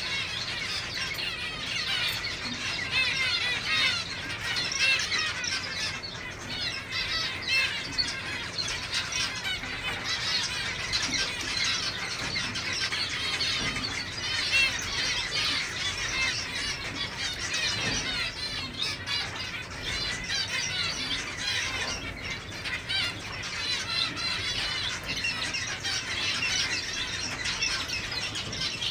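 A continuous chorus of short, overlapping chirps from many zebra finches calling at once.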